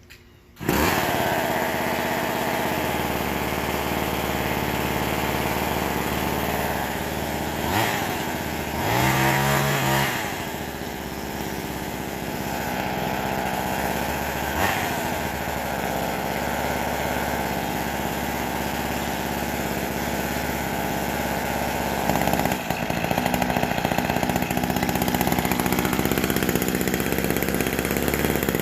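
McCulloch Mini Mac 120 two-stroke chainsaw engine catches under a second in and keeps running, with one brief rev up and down about nine seconds in.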